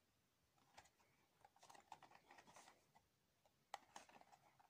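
Faint rustling and a few light clicks and taps of a small cardboard model-car box being handled and turned over in the hands.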